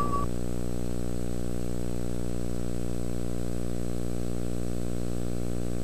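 Steady low electrical hum with a buzz, from the blank gap between films on an old video-tape transfer; a high held tone from the closing music cuts off just at the start.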